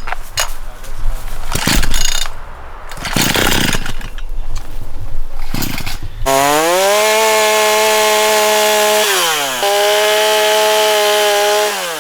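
Chainsaw engine. After some seconds of irregular clatter it revs up to full throttle and holds a steady high-pitched whine. It drops off briefly about three-quarters of the way in, revs up again, then winds down at the end.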